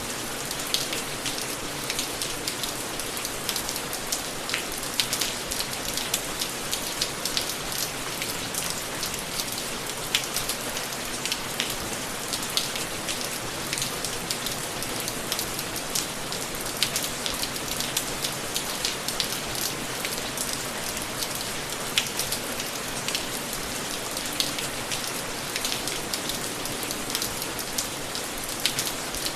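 Steady rain falling, with many small drops ticking irregularly on a hard surface.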